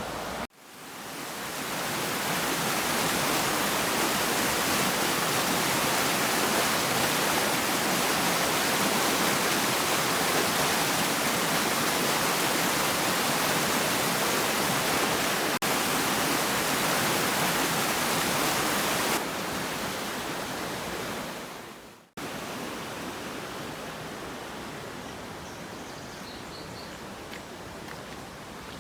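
Rushing water of a waterfall: a steady, loud, even hiss. It cuts off abruptly twice and is quieter over the last several seconds, where a few faint bird chirps can be heard.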